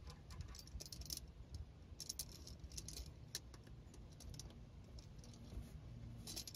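Faint, irregular metallic clicks and rattles from a socket ratchet and a 3-jaw oil filter wrench adapter worked on the oil filter, with a few quick clicks in a row about two seconds in. The oil filter is being loosened for removal.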